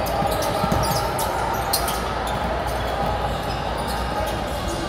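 Basketballs bouncing on a hardwood court, with short sharp knocks over the steady echoing din of a large gymnasium and indistinct voices.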